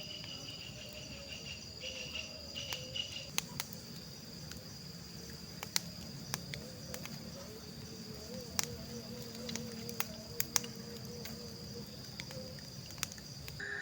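Crickets and other insects trilling steadily, with a pulsing chirp in the first few seconds. Sharp crackles and pops from a campfire with a bamboo cooking tube in it are scattered throughout.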